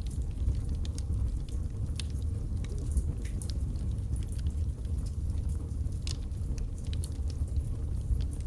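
Log fire burning in a fireplace: a steady low rumble of flames under irregular sharp crackles and pops from the burning wood.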